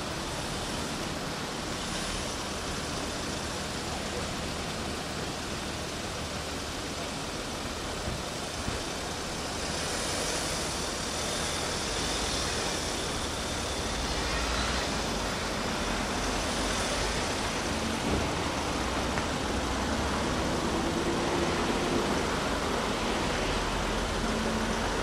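Outdoor road traffic: a steady hiss of vehicles and running engines, with a low rumble joining about halfway through.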